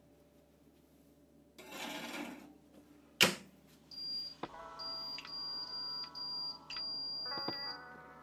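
A cast-iron pan scrapes briefly onto the wire rack of an oven-style air fryer and the door shuts with one sharp clack, then the touch panel beeps again and again as the temperature is stepped up to 170 °C and the timer set.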